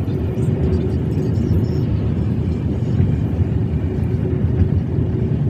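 Inside a moving car's cabin: a steady low rumble of engine and road noise, with a faint steady hum.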